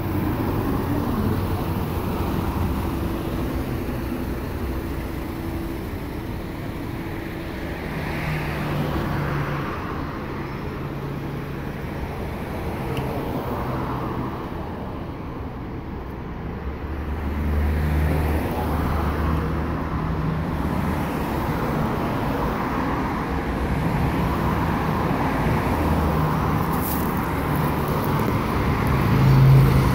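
Street traffic: cars driving past on a city boulevard, a steady run of engine and tyre noise that swells as vehicles pass close, most of all near the end.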